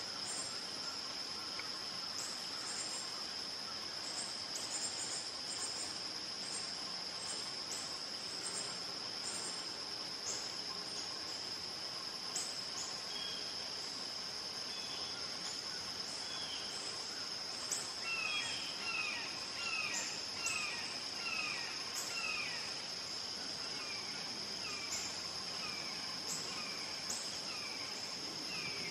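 Steady high-pitched drone of insects. A little past the middle comes a faint run of short, descending bird calls.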